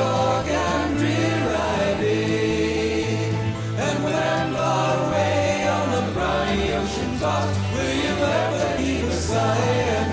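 Background music: a song with singing voices over a bass line.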